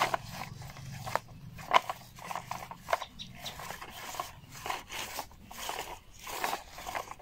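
Bucket of a toy RC excavator scraping and crunching through damp soil, an irregular run of gritty scrapes with a few sharp clicks.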